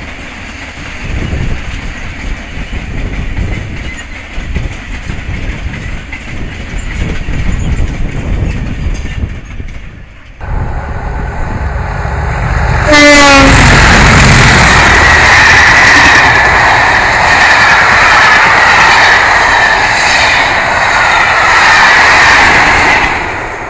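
A freight train of open wagons rolls past with a low rumble and the clatter of wheels over rail joints. About ten seconds in the sound cuts to a diesel-hauled passenger train with a Class 47 locomotive. It arrives near the halfway point with a short falling series of tones and then passes close at speed, much louder, before easing off near the end.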